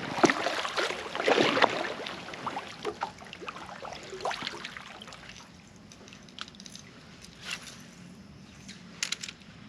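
Water splashing and sloshing at a kayak, with small knocks. The splashing is loudest in the first two seconds, then thins to scattered drips and clicks.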